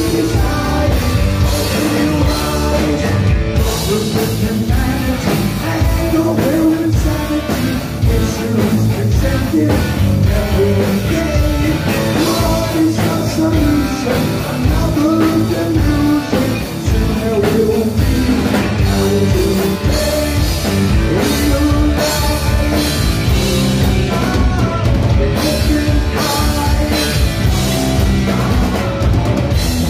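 Heavy metal band playing live: electric guitar and drum kit with a singer's vocals.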